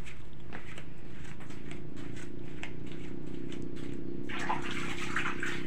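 Water splashing and sloshing in a basin, starting about four seconds in, over a steady low hum and a few light knocks.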